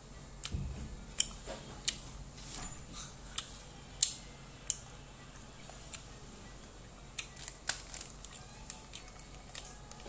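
Close-up chewing of yogurt gummy candy: irregular sharp wet mouth clicks and smacks as the chewy gummies are worked between the teeth.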